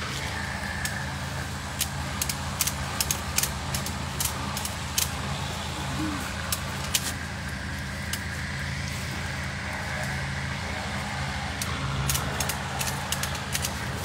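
Steady low drone of a pressure washer running, over which a ratchet strap and the steel transport cage give sharp metallic clicks and rattles in irregular clusters, most of them in the first few seconds and again near the end.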